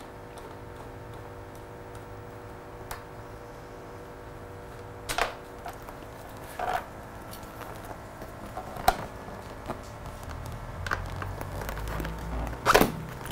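Scattered light clicks and knocks of a 5 mm Allen key working the seat bolts and the seat being freed from a Honda CBR1000RR, a few seconds apart, over a steady faint hum. The loudest knock comes near the end as the seat comes loose.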